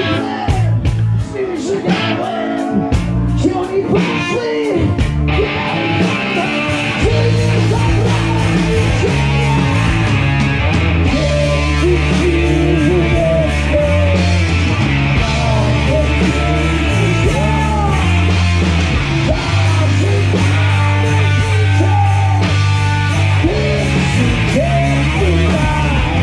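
Rock music with guitar, starting thin and choppy and filling out into a full, steady band sound about six seconds in.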